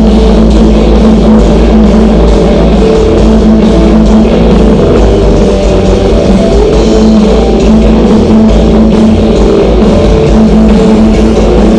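A rock band's sound check blaring through the venue's PA, heard from the street outside the walls: loud, steady drums and guitars.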